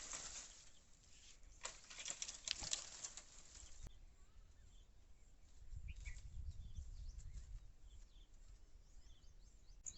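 Faint crackling and rustling of dry brush and leaves, cut off sharply about four seconds in. After that, a low wind rumble and a few short bird chirps.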